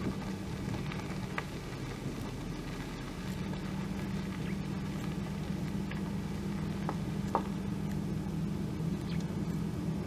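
A southern red-billed hornbill's bill digging through dry rhino dung: soft rustling with a few faint clicks. A steady low hum runs underneath.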